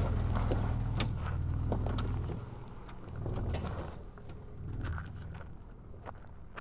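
Ford Ranger Raptor pickup engine running at low revs as the truck crawls over rock, with stones cracking and crunching under the tyres. The engine drops away sharply about two seconds in as the truck pulls away, and the scattered cracks of stone carry on.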